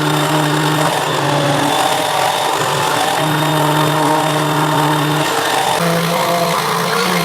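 Electric random orbit sander running on a guitar body's hardened 2K lacquer finish, with a steady motor hum over a constant hiss of the pad on the surface. The hum drops out and shifts in pitch a few times, rising slightly near the end.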